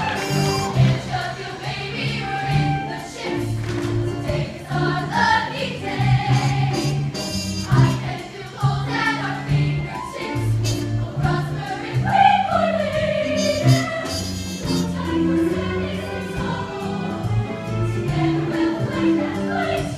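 Show choir singing an up-tempo number to band accompaniment, with a steady bass line and drums under the voices.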